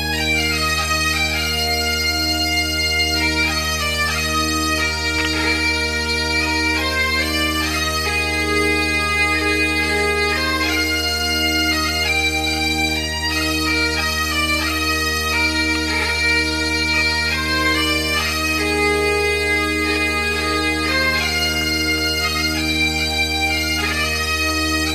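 Bagpipe music: a melody played over steady, unbroken low drones.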